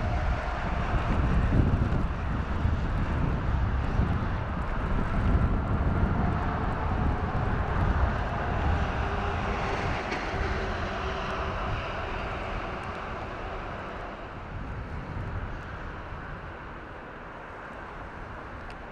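KiHa 40-series diesel railcar running away along the track, its diesel engine and wheels rumbling low and steadily, fading gradually as it moves off.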